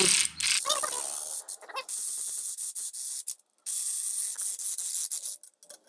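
Impact wrench running down the rocker-arm bolts on an LS V8's cylinder head: a hissing, rattling run of fine clicks in short stretches, with a brief break about three and a half seconds in.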